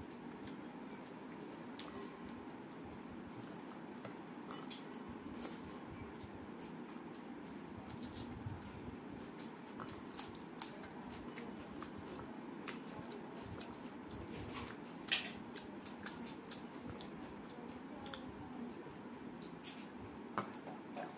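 Quiet eating sounds of a person eating rice by hand: fingers mixing rice on a steel plate and mouth clicks and smacks while chewing, scattered irregularly with a sharper click about fifteen seconds in, over a steady low background noise.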